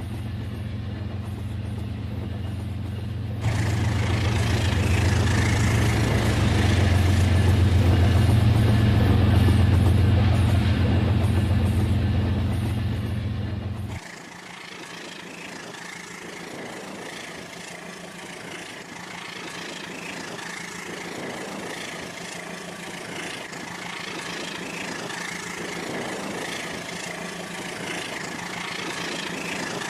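RailKing model train locomotive running with a steady, low engine rumble that grows louder about three and a half seconds in. About halfway through the rumble cuts off abruptly, leaving a quieter steady hiss with faint high tones.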